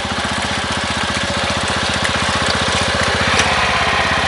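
A two-wheel hand tractor's engine running steadily under load as the tractor works through a flooded rice paddy, with a fast, even chugging beat.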